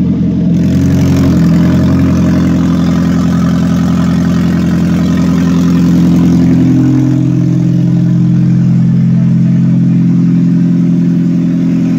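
Toyota Prius 1.5-litre four-cylinder petrol engine running with its catalytic converter cut out of the exhaust: a loud, raw exhaust drone. Its pitch dips and recovers about seven seconds in.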